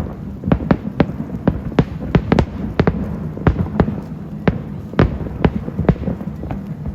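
New Year fireworks going off: an irregular run of sharp bangs, several a second, over a steady low rumble.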